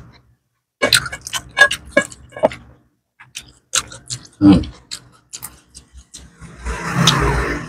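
Close-miked eating sounds: chewing with wet mouth clicks and lip smacks, irregular and sharp. Near the end comes a louder noisy rush of about a second.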